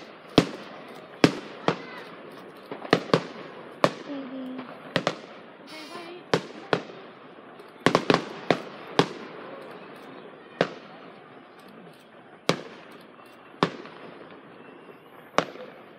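Aerial fireworks bursting: an irregular series of sharp bangs, each trailing off in an echo, with a quick cluster of several bangs about halfway through.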